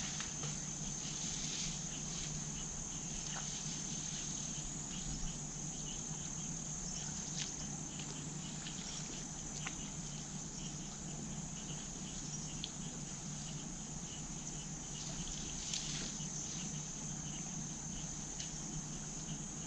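A steady, high-pitched insect chorus, a continuous shrill that never breaks, with a few faint clicks scattered through it.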